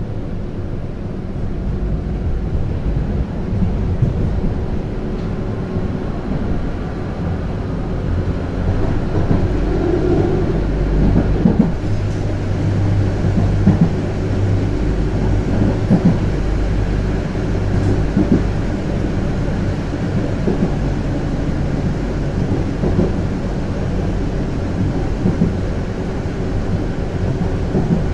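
Konstal 105Na tram running along the track, heard from inside the passenger saloon: a steady low rumble from the wheels and running gear, with several sharp knocks at irregular intervals.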